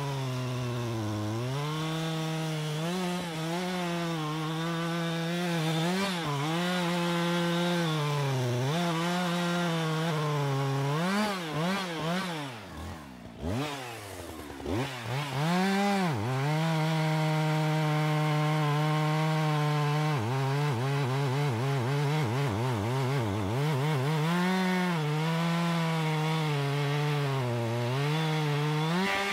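Two-stroke chainsaw running at high revs while cutting into the base of a large tree, its engine note dipping and recovering again and again as it cuts. About halfway through it drops sharply toward idle for a moment, then revs back up to full speed.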